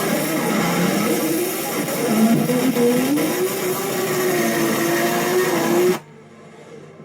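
Drift car engine held at high revs while sliding, its pitch rising and falling smoothly with the throttle over a haze of tyre and road noise. About six seconds in the sound drops away suddenly to a much quieter engine.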